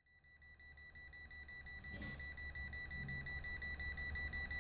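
Voltage tester beeping rapidly in a high, steady-pitched tone, getting louder over the first few seconds. It is sensing live voltage on the baseboard heater circuit, whose breaker is still on.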